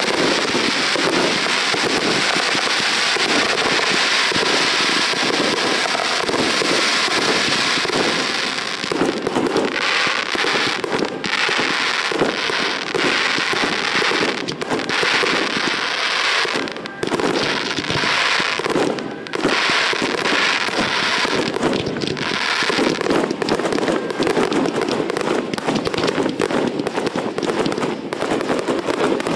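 Aerial fireworks bursting and crackling in a dense barrage. The crackle is unbroken for the first several seconds, then breaks into many quick bursts with brief gaps between them.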